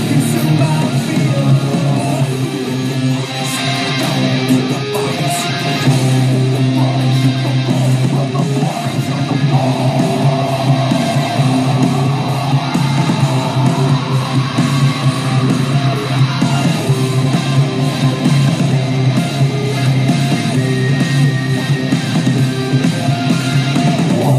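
Background rock music with electric guitar, loud and continuous.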